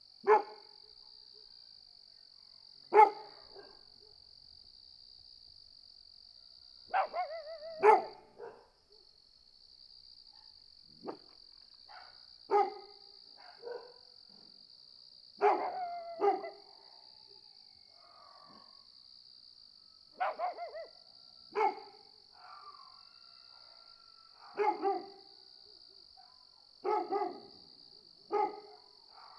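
Dogs barking off and on, short single and double barks every few seconds, over a steady high-pitched chorus of crickets.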